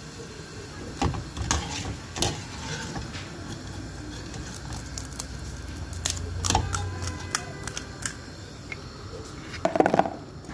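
Scattered small clicks and crackles of food handling: a fingertip cracking open a crisp fuchka puri shell and a metal spoon scraping mashed-potato filling off a paper plate, with the loudest scrape-and-tap cluster near the end.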